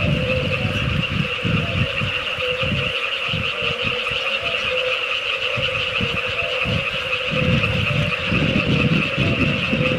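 Frog chorus: a steady high trill with short repeated lower notes over it. An uneven low rumble comes and goes underneath.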